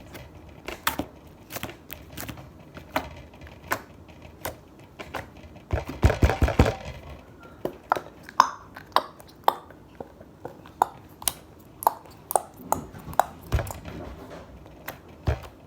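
Slime being worked in a bowl: a string of sharp clicks and taps, irregular and coming more often later on, with a denser, noisier stretch about six seconds in.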